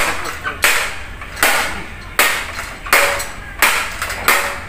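Hammer blows on metal in an even rhythm, about three strikes every two seconds, each ringing briefly after the hit.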